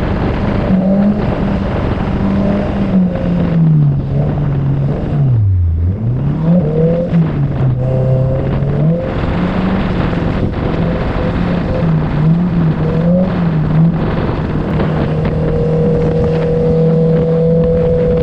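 Honda CBR650F inline-four running through an Akrapovic full-system exhaust with the dB killer removed, its engine note rising and falling with the throttle. About five to six seconds in, the revs drop sharply and climb straight back; from about fifteen seconds in, the note holds steady.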